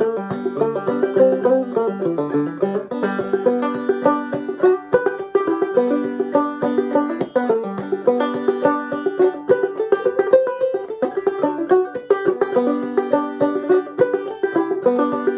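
Five-string banjo played clawhammer style in open G tuning (gDGBD): a steady run of quick, bright picked notes in an old-time fiddle-tune rhythm.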